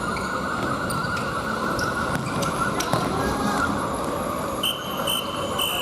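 Futsal play on an indoor gym court: a steady echoing hall din with a few sharp knocks of the ball being kicked, and two short, high shoe squeaks on the court floor near the end.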